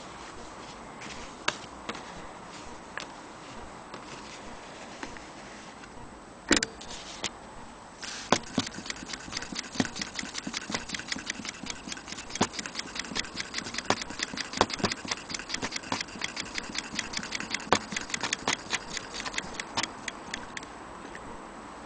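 Willcox & Gibbs hand-cranked chain-stitch sewing machine stitching fabric: a rapid, steady clicking of the mechanism, starting about eight seconds in after a few scattered clicks.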